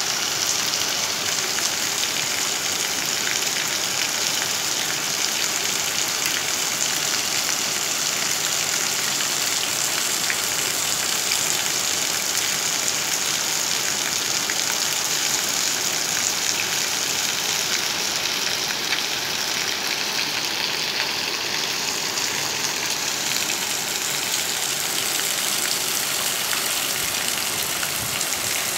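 Heavy rain falling steadily onto floodwater, a continuous dense hiss that does not let up.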